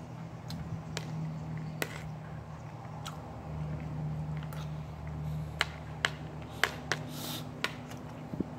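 Close-up chewing of a mouthful of rice and fried egg, with scattered sharp clicks and smacks, over a steady low hum.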